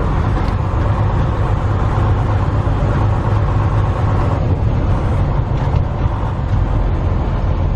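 Detroit DD15 inline-six diesel of a 2019 Freightliner Cascadia semi truck running on the road, a steady low drone mixed with road noise.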